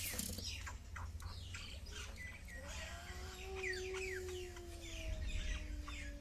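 Small birds chirping in quick downward chirps, with a long drawn-out call, like a rooster's crow, starting about two and a half seconds in and held for several seconds. A low steady hum runs underneath.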